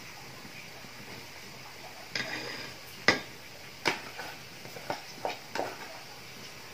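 A metal spoon scraping and knocking against metal pots as rice is scooped from a small pot into a large aluminium steamer pot. There is a short scrape about two seconds in, then several sharp clinks over the next few seconds.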